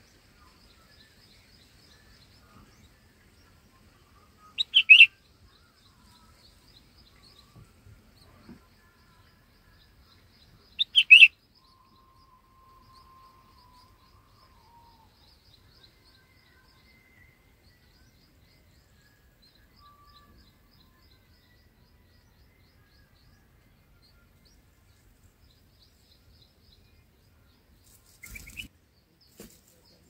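Red-whiskered bulbuls calling at the nest: two short, loud bursts of chirps about six seconds apart, over faint scattered bird calls. Near the end there is a brief rustle.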